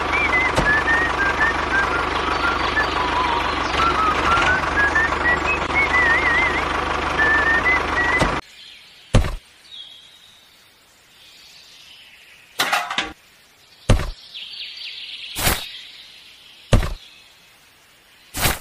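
A tractor engine sound running steadily with a wavering whistle-like tone over it, cutting off abruptly about eight seconds in. Then a handful of sharp knocks and clicks as a small homemade concrete mixer model is handled and set down on sand.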